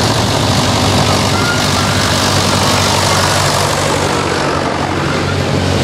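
Vintage tractor engines running steadily as the tractors drive past one after another, a low engine drone with road and tyre noise.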